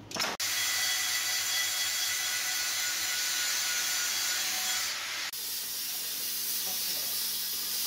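Angle grinder running its disc against a steel bar clamped in a vise, a steady whine over a loud grinding hiss. The sound drops out briefly and changes abruptly a little after five seconds in.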